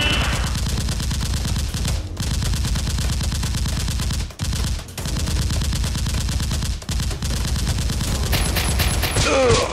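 Automatic gunfire sound effects: rapid, continuous shots in long bursts, with short breaks about two, four and a half and seven seconds in.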